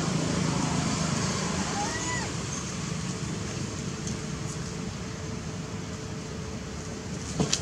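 Outdoor ambience: a steady low rumble and hiss, with a short bird chirp about two seconds in and a brief sharp squeak near the end.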